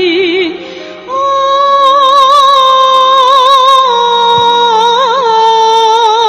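A woman singing a song in Azerbaijani with wide vibrato over instrumental accompaniment. From about a second in she holds two long notes.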